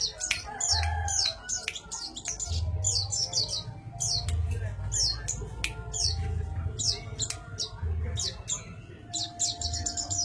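Brown-throated sunbird (sogok ontong) calling nonstop: a rapid run of sharp, high-pitched notes, each falling steeply in pitch, repeated throughout with only brief gaps.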